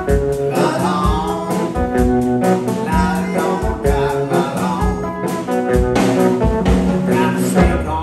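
Blues band playing live, with a man singing over guitar and drums.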